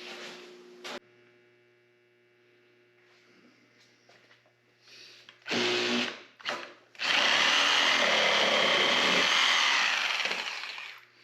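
Handheld electric power tool run in two short bursts, then steadily for about three and a half seconds before winding down.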